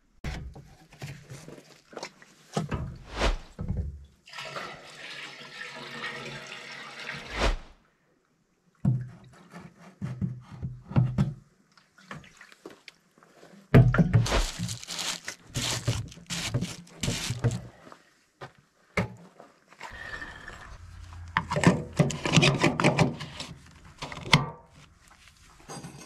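Oil being poured from a plastic jerrycan into a backhoe's filler neck, in separate stretches, with knocks and scrapes as the can and filler caps are handled.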